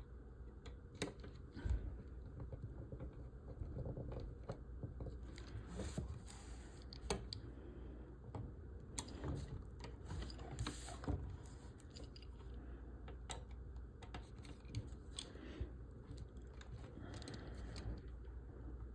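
Scattered light clicks and taps of a screwdriver, small screws and model-kit frame parts being handled as the frame's screws are tightened, over a steady low hum.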